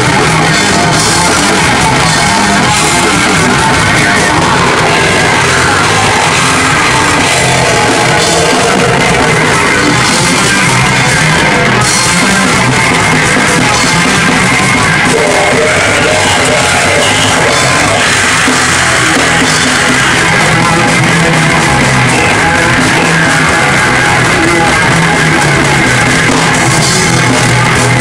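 Metal band playing live: electric guitars and drums at a loud, even level.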